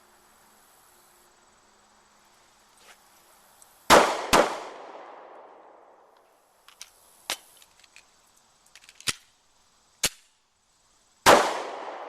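Pistol shots: a quick pair about four seconds in, then a single shot near the end, each followed by a long fading echo. Fainter sharp cracks and clicks come in between.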